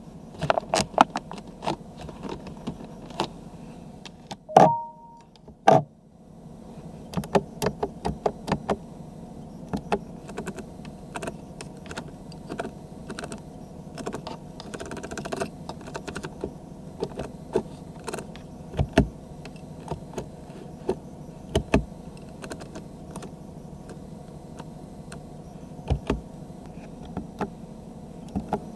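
Genesis G90 centre-console buttons being pressed one after another, a run of sharp clicks. A short electronic beep sounds about five seconds in, between two louder knocks.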